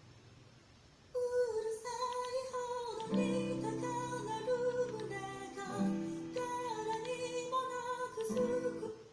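A short piece of music with guitar and a sung or held melody. It starts about a second in and stops just before the end.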